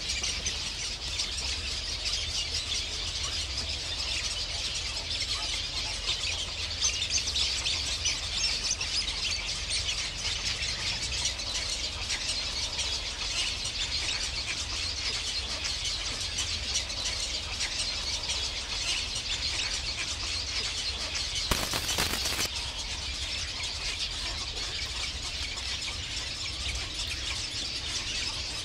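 Many birds calling at once in a dense, continuous high-pitched chatter over a low steady hum.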